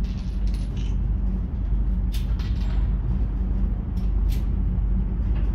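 Indoor shooting range ambience: a steady low rumble, with a few faint sharp cracks about half a second in, twice around two seconds and twice around four seconds.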